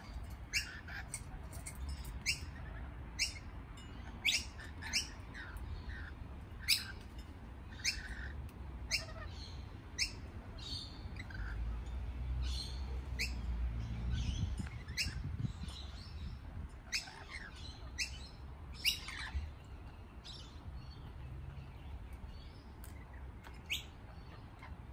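Lorikeets calling with short, sharp chirps scattered irregularly, over a low rumble that swells around the middle.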